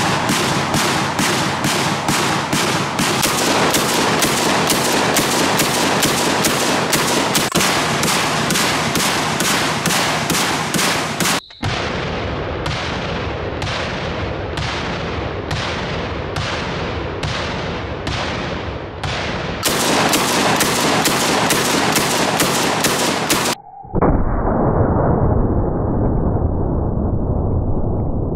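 Cobray Street Sweeper 12-gauge revolving-drum shotgun firing: a fast string of shots at about two to three a second, then slower single shots about two-thirds of a second apart, then another fast string. The last few seconds are a loud but muffled, dull stretch without the sharp crack.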